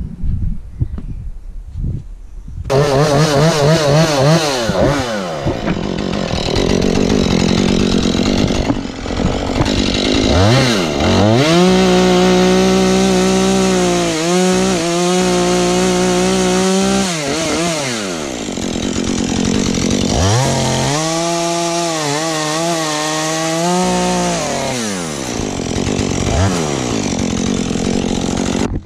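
Husqvarna 435 two-stroke chainsaw running low for a few seconds, then opened up to full throttle about three seconds in to cut through small pine trunks. The engine note wavers under load, climbs to a steady high scream twice and drops back between the cuts.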